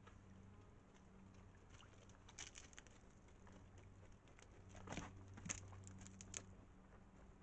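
Desert bighorn sheep drinking from a shallow rock pool: faint, irregular lapping clicks and ticks, a few louder ones around the middle, over a low steady hum.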